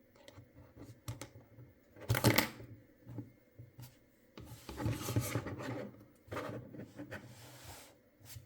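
Hands handling unboxing packaging: scattered light clicks and taps, a loud rustle about two seconds in, and longer stretches of rustling from about four and a half to eight seconds.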